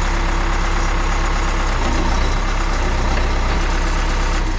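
John Deere 310C backhoe's diesel engine idling steadily, a loud low drone with a steady hum above it.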